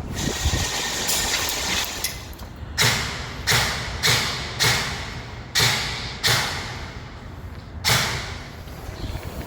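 Airsoft gun fired seven times at an uneven pace, each shot a sharp crack that trails off briefly, with wind noise on the microphone.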